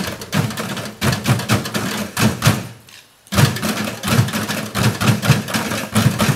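Junk-percussion ensemble of plastic drums on stands, metal cans and plastic pipes struck with sticks, with a small xylophone, playing a fast steady rhythm. It breaks off for a moment near the middle, comes back in sharply, and fades out again just before the end.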